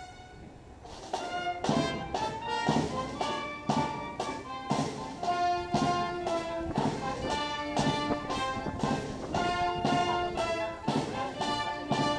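Military band playing a march: brass carrying the tune over a drum beat of about two strokes a second, starting about a second in.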